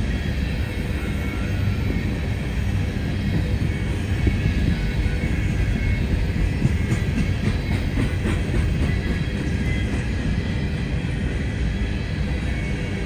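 CSX open-top coal hopper cars rolling past close by: a steady rumble of steel wheels on rail, with a few clicks and clanks about seven to nine seconds in.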